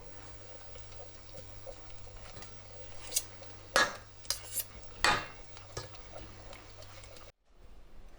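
Cutlery clinking against dishes at a table: about six sharp clinks between three and six seconds in, over a low steady hum. The sound breaks off abruptly near the end.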